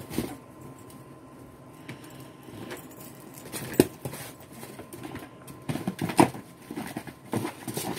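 Ferrets' paws scrabbling through snow and on a plastic kiddie pool: an irregular patter of scuffs and light knocks against the plastic and the bowls. There is one sharp knock about four seconds in, and louder scuffling near the end.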